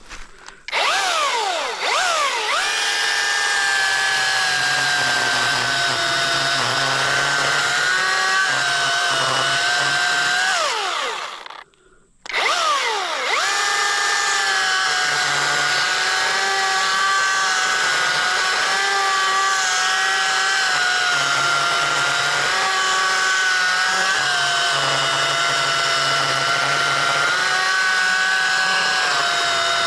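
Battery-powered Youxian chainsaw making the back cut through a tree trunk. Its motor whine falls in pitch as the chain bites into the wood and wavers under load. It stops for about a second near the middle, then starts again and keeps cutting.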